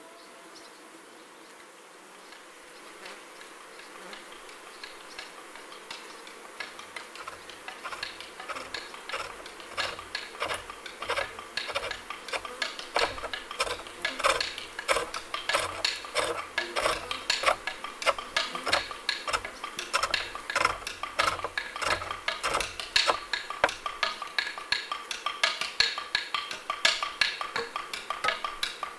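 A woodturning gouge cutting into wood spinning on a lathe: scraping, chattering cuts in quick repeated strokes, fading in over the first several seconds.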